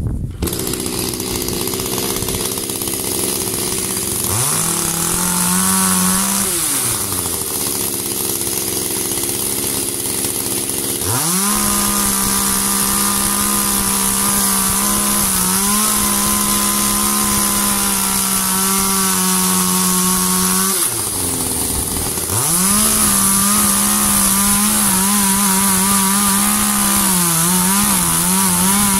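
ECHO two-stroke chainsaw revved up to full speed three times and cutting through a log, each time dropping back to a lower-pitched idle in between. Its pitch dips briefly now and then as the chain bites into the wood.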